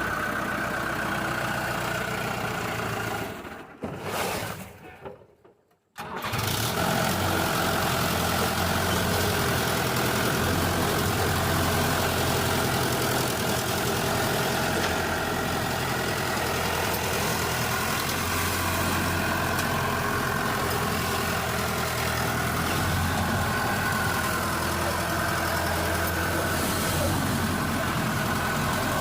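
Tractor engine running steadily. It fades and drops out for about two seconds around four seconds in, then runs steadily again.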